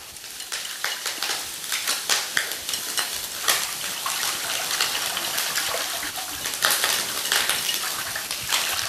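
Wire balloon whisk beating milk and cornstarch in a glass bowl: the wires click against the glass and the liquid sloshes in quick, irregular strokes. This is the cornstarch being dissolved in the milk before it goes into a sauce.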